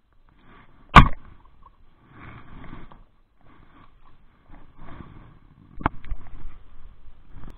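Handling noise from a spinning rod and reel: a loud, sharp click about a second in and another sharp click just before six seconds, with soft rustling and knocking of the gear in between.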